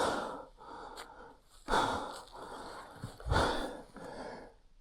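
A person breathing hard, with a loud breath about every second and a half.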